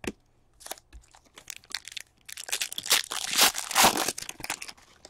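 A foil trading-card pack wrapper handled and torn open by hand: a few light clicks and rustles, then about two and a half seconds of dense crinkling in the second half.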